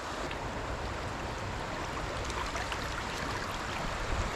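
Fast, shallow stream water rushing steadily over a riffle.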